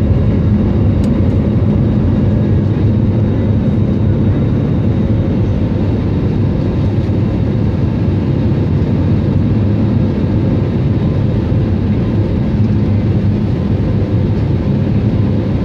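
Cabin noise of a jet airliner climbing out after takeoff: a steady low drone of the wing-mounted turbofan engine and rushing air, heard from inside the cabin by a window over the wing.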